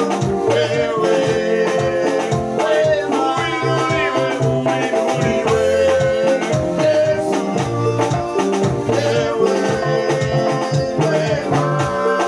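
Upbeat music with singing, a steady beat and a shaker-like rattle, going on throughout.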